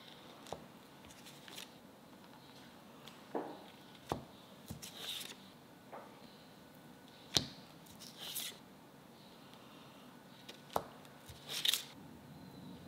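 A kitchen knife slicing through a block of butter and knocking against a wooden cutting board four times, roughly every three seconds. Each knock is followed by a short crinkling rustle of the foil wrapper as the slice is moved.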